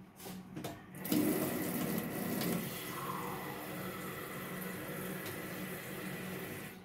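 Kitchen tap running, turned on about a second in and shut off abruptly near the end.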